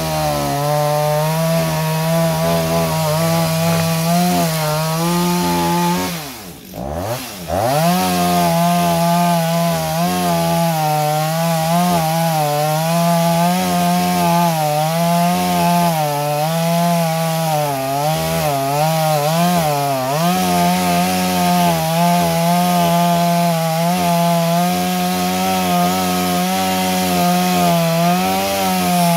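Two-stroke petrol chainsaw running near full throttle and cutting into a tree stump, its engine pitch wavering as the chain bites into the wood. About six seconds in, the throttle drops briefly toward idle and then revs back up.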